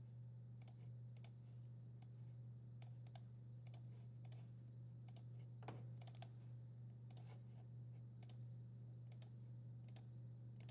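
Faint, irregular clicks of a computer mouse and keyboard, about one or two a second and some in quick pairs, over a steady low hum.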